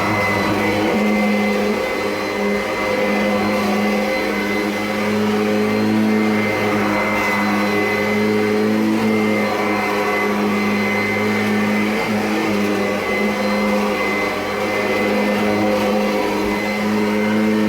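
Kirby Avalir upright vacuum cleaner running steadily, a constant motor hum with a thin high whine, running smoothly and sounding healthy.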